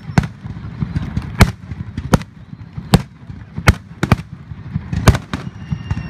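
Fireworks display: a run of about ten sharp bangs from aerial shells, coming irregularly every half second to a second, some in quick pairs, over a low rumbling background.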